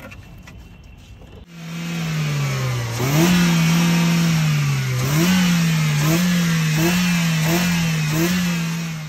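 Four-cylinder petrol car engine revved in a string of quick throttle blips, each pitch rising sharply and sinking back, about one and a half blips a second. It starts abruptly about a second and a half in, after a quiet stretch.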